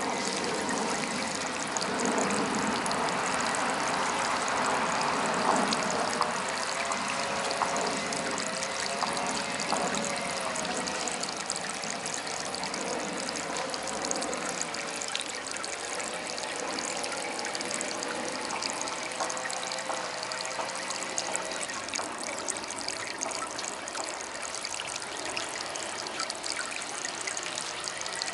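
Water trickling steadily from a small DIY garden fountain.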